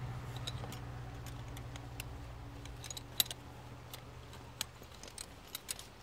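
Scattered light metallic clicks and rattles of racing-harness buckles and latch plates being handled while the harness is fastened, over a faint low hum that fades out about three seconds in.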